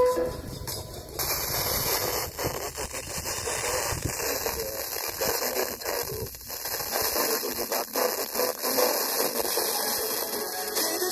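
FM radio static from a TEF6686 receiver tuned to a weak or empty frequency during a band scan. A steady hiss comes in about a second in, with only faint traces of a station's audio beneath it.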